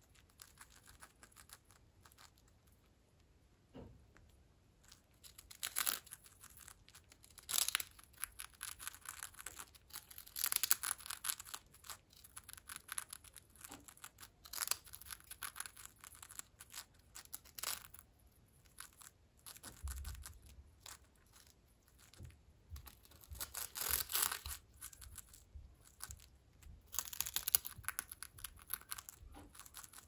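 Senegal parrot crunching a prawn cracker in its beak: crisp crackling bites in bursts every second or few, sparse at first and thicker from about five seconds in.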